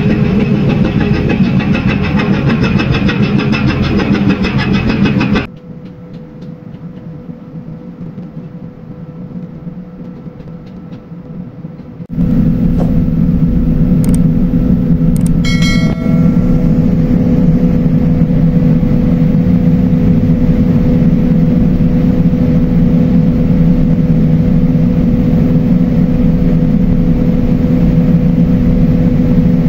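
Large diesel engine machinery of a harbour tug and cargo ship running with a steady drone and a faint whine, cutting in abruptly about twelve seconds in after a quieter stretch; the opening seconds are also loud engine noise. A short chime rings briefly about sixteen seconds in.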